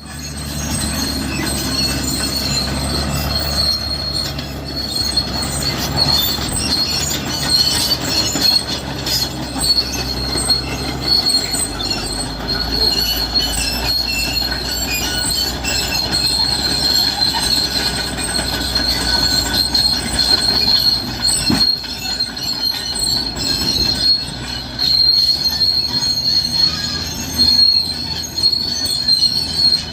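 Cat D6R crawler bulldozer working, its steel tracks giving a steady high squeal and clatter over the low drone of its diesel engine.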